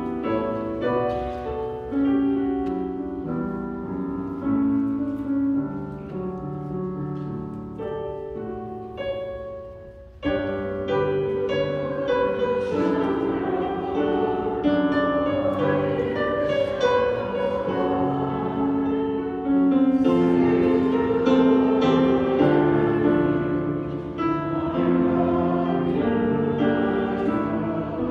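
Slow piano music in held chords. It fades away about ten seconds in, then comes back at once louder and fuller.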